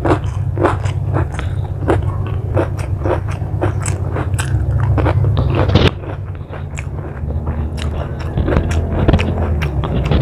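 A person chewing crunchy food close to the microphone: regular crunches about twice a second, turning quieter and more scattered after about six seconds, over a steady low hum.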